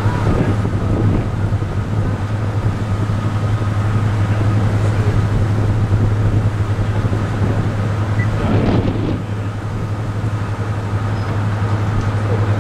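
Class 55 Deltic diesel locomotive idling at a standstill, its Napier Deltic two-stroke opposed-piston engines giving a steady low drone with a faint steady whine above it.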